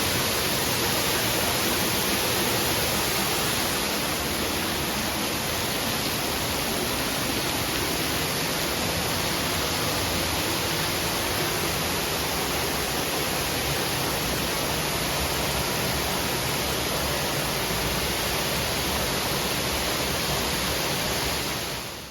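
Steady rush of a waterfall, a dense even hiss of falling water, fading out right at the end.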